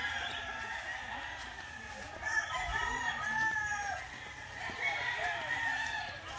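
Several gamecocks crowing, one call after another with some overlapping.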